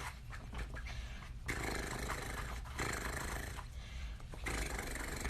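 A person doing a mouth-made drumroll: rolled, rattling trills in several bursts of about a second each, with short breaks between them.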